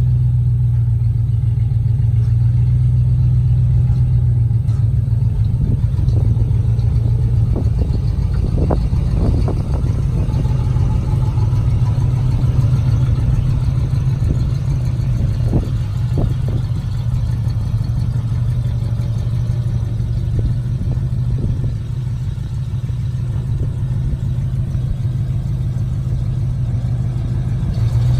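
1971 Chevrolet C/50 grain truck's engine running with a steady low drone as the truck drives slowly, with a few short knocks partway through.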